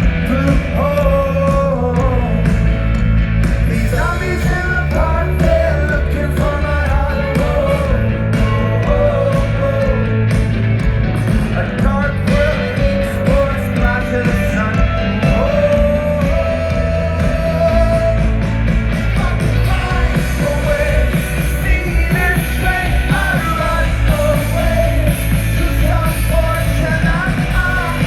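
Live rock band playing a song, a male lead voice singing over drums, bass and guitars.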